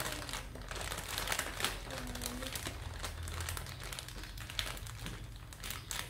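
Clear plastic bag crinkling and rustling in irregular crackles as kittens move inside it and push at it from outside.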